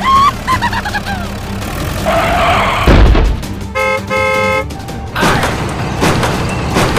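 Two short car-horn honks about four seconds in, over background music and cartoon sound effects, with a heavy thud just before the honks.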